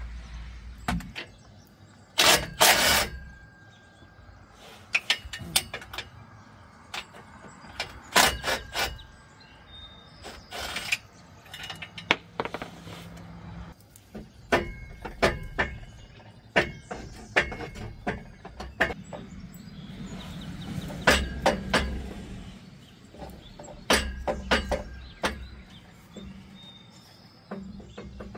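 Irregular metallic clanks, clicks and knocks of hand tools and exhaust parts being worked on from underneath a squarebody Chevy pickup.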